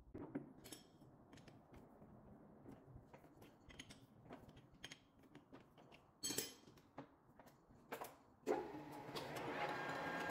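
Scattered metallic clicks and knocks of work at a metal lathe's three-jaw chuck. About eight and a half seconds in, the lathe starts and its spindle runs steadily with a whine of several tones.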